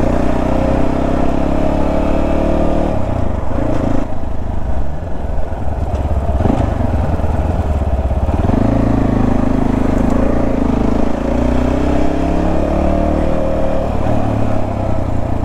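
Motorcycle engine and exhaust running under way, with wind rush, easing off from about three seconds in and pulling strongly again from about eight and a half seconds. The exhaust has just had its broken section welded, and the rider finds it no longer noisy.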